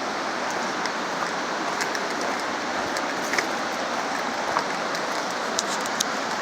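Steady rushing of a mountain creek, with a few faint clicks scattered through it.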